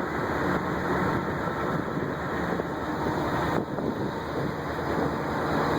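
Steady running noise of a moving vehicle, with a brief dip about three and a half seconds in.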